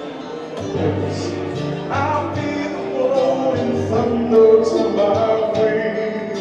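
Live three-piece band playing an 80s-style song, with a singer's voice over the instruments.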